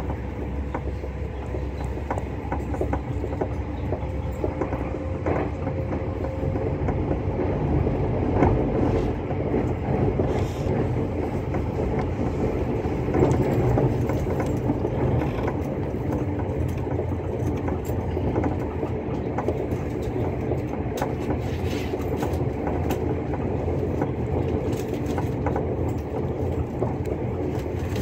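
Öresundståg electric multiple unit heard from inside the carriage while running through a tunnel: a steady rumble of wheels and running gear on the rails, with occasional short clicks.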